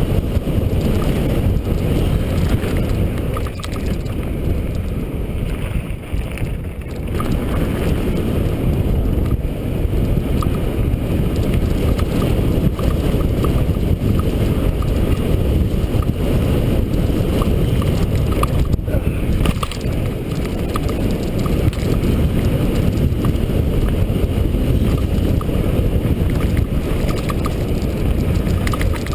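Mountain bike rolling down a dirt trail: a steady rumble of tyres on dirt, with wind rushing over the microphone.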